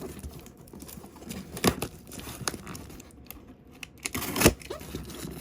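Knife cutting open a cardboard box: irregular scraping, tearing and crinkling of cardboard and packing tape, with a few sharp snaps, the loudest about a second and a half in and near the end.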